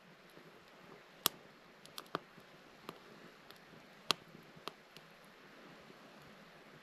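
Firewood burning in a small metal wood stove, crackling with about half a dozen sharp, irregular pops over a faint hiss. The loudest pops come a little over a second in and about four seconds in.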